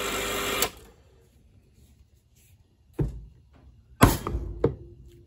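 Rancilio Silvia espresso machine's short hissing rush cuts off sharply about half a second in. Two knocks follow, about a second apart, near the end.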